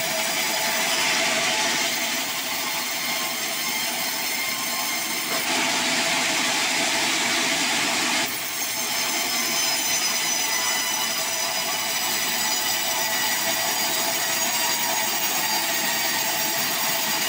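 Band sawmill running, its blade cutting lengthwise through a sonokeling (Indonesian rosewood) log as the carriage feeds it past. A steady whine with sawing noise, which turns harsher and noisier for about three seconds, from about five seconds in.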